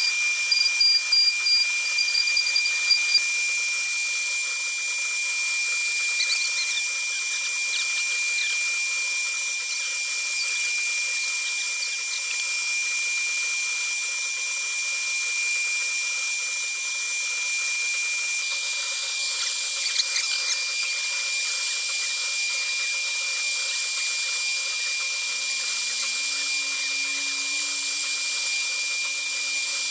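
HTM1325 CNC router spindle carving a 3D relief into an MDF panel: a steady high-pitched whine over the hiss of the bit cutting the board.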